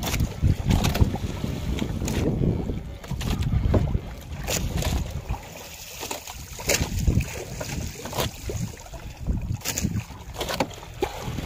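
Wind buffeting the microphone with an uneven rumble, loudest in the first few seconds and easing after. Scattered sharp knocks and clicks sound through it as a fisherman works in the boat.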